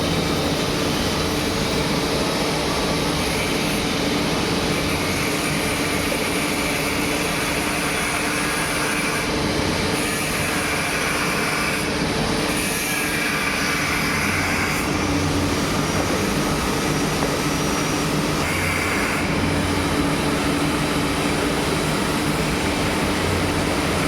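Surface grinder running: a steady machine hum with a hissing grinding sound over it. A higher, harsher band swells and fades every few seconds.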